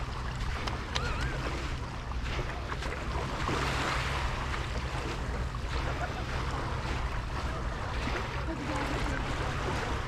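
Beach ambience: waves washing on the shore and wind buffeting the microphone over a steady low rumble, with faint distant voices.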